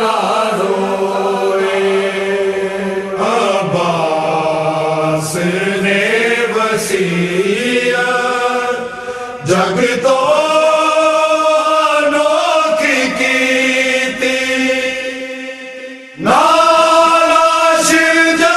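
Voice chanting a Muharram mourning lament (noha) in long, drawn-out notes that slide from one pitch to the next. Near the end it fades briefly before a new phrase starts loud.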